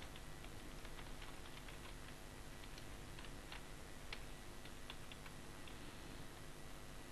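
Computer keyboard keystrokes, faint irregular clicks of someone typing, over a steady low hiss.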